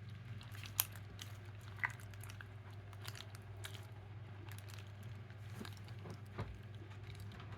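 Glue slime being handled, stretched and squished, giving scattered sticky clicks and pops, with sharper snaps about a second and two seconds in. A low steady hum runs underneath.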